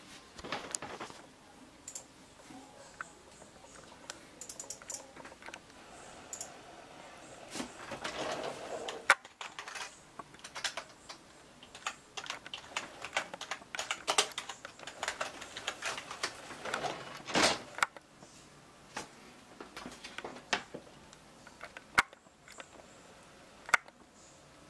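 Irregular small clicks and taps with bits of rustling handling noise, from buttons being pressed on a Canon EOS Rebel SL2 DSLR while its date and time are set.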